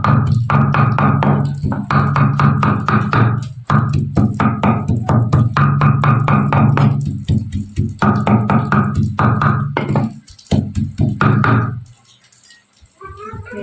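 Kitchen knife chopping mugwort leaves finely on a cutting board: fast runs of rapid strokes with short pauses, stopping about twelve seconds in.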